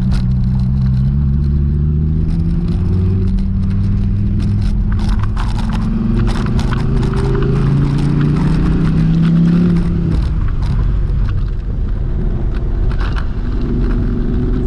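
Dodge Viper SRT's 8.4-litre V10 heard from inside the cabin under hard acceleration, its note rising, dropping at a gear change about three seconds in, then rising again. About ten seconds in the driver backs off and the engine settles to a steadier, lower note over tyre and road noise.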